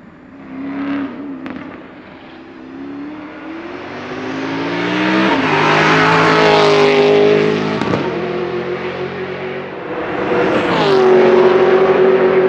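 Porsche Panamera S race car's V8 engine under load, its note climbing as the car approaches and loudest as it passes close by about halfway through, the pitch dropping as it goes past. Later the engine rises again and holds a loud, steady note as the car accelerates.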